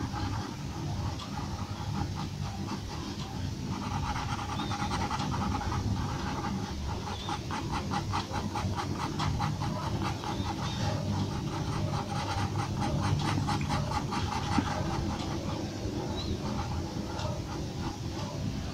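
Graphite pencil scratching on paper in quick, short hatching strokes, about four a second, over a steady low background hum.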